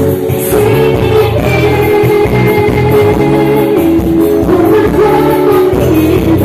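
A band playing a song with singing.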